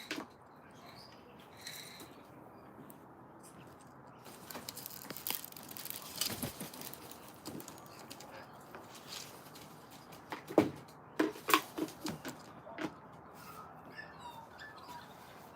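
Birds fluttering, landing and shuffling about, with a run of light taps and scuffs midway and then four or five sharp knocks in quick succession about two-thirds of the way through. A few faint bird chirps come and go.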